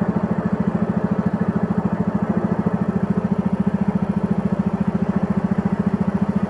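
Small boat's motor running steadily at cruising speed, with a rapid, even pulsing beat.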